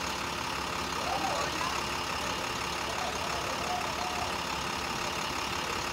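Parked bus engine idling steadily, with faint voices a couple of times.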